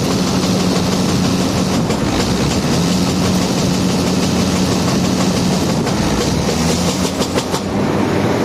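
Tractor engine running steadily and making an abnormal mechanical noise, with a steady low hum through it. A quick run of sharp clicks comes about seven seconds in.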